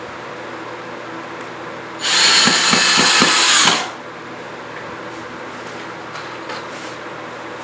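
A power drill runs in one loud burst of about two seconds, starting about two seconds in, over a steady background hum.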